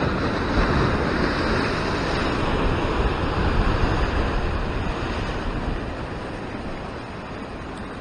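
Ocean surf washing over a rocky shore ledge: a rush of whitewater that surges up right at the start, stays strong for a few seconds, then slowly eases off.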